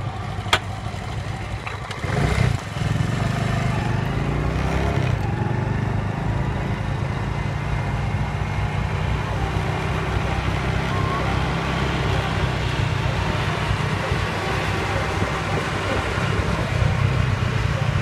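Tractor engine running steadily under load as it drives a straw reaper, a continuous low drone, with a sharp click about half a second in.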